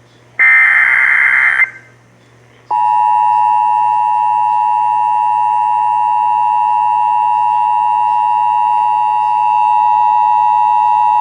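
An Emergency Alert System SAME header, a harsh digital data burst a little over a second long, is followed after a short gap by the EAS two-tone attention signal. That signal is the 853 Hz and 960 Hz tones sounded together, held steady for about nine seconds and then cut off sharply. Together they mark the start of an EAS alert activation.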